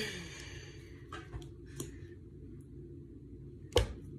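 Steady low room hum with a few faint clicks from small objects being handled, and one sharp tap near the end.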